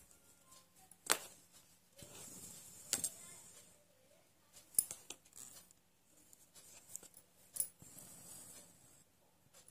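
Faint sounds of hand embroidery on cloth stretched taut in a wooden hoop: a few sharp ticks as the needle goes through, and two longer stretches of noise as the thread is drawn through the fabric.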